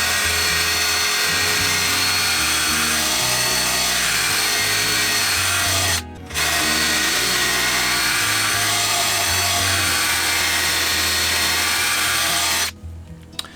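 Electric drill running on high speed with a grinding sharpener attachment, grinding the cutting edge of a steel lawnmower blade held in a vise. It runs in two steady passes, with a brief stop about six seconds in, and cuts off shortly before the end.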